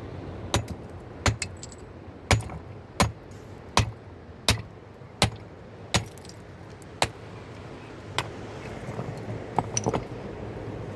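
A series of sharp knocks, about one every three quarters of a second, that stops about eight seconds in, followed by a quick run of lighter clicks near the end. Under them runs a steady rush like a fast river.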